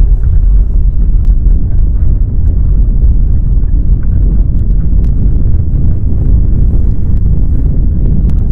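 Deep, steady rumble of earthquake shaking, loud and continuous.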